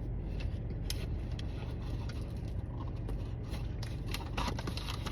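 Chewing, with faint clicks and wrapper crinkles, over a steady low hum of a car's engine running. The clicks grow busier about four seconds in.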